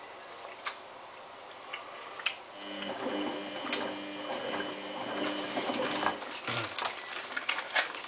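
Samsung WF8804RPA front-loading washing machine on its hand-wash 30 main wash: the drum motor runs with a steady hum for a few seconds in the middle, turning the load gently, over scattered light clicks from the tumbling laundry.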